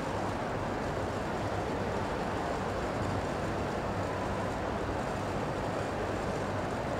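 Steady background noise of a large indoor show hall, with a faint low hum underneath and no distinct events.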